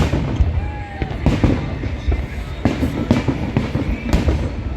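Display fireworks exploding: about half a dozen sharp bangs over a continuous low rumble of further bursts.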